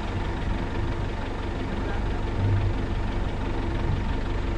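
Safari jeep's engine running steadily as the jeep drives along a dirt track.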